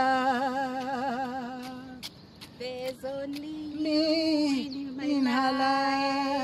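A man and a woman singing together without accompaniment, drawing out long notes with a wavering vibrato. There are a couple of short breaks for breath. The singing is amateur.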